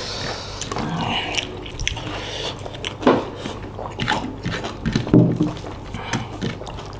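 Close-miked eating sounds: chewing and lip smacking of food eaten by hand, with many small scattered clicks.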